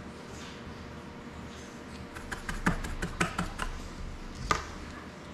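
A quick run of small, sharp clicks and taps lasting about a second and a half, starting about two seconds in, then one more sharp click near the end: small tools and hard drone parts being handled on a work mat. A faint steady hum runs underneath.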